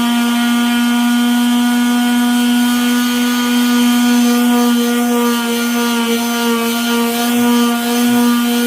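Hitachi electric sander running steadily with a constant motor hum, its sandpaper scratching over cured two-part epoxy on a workbench top.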